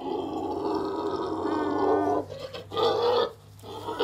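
Pot-bellied pig giving a long, raspy grunting call of about two seconds, then a shorter one about three seconds in.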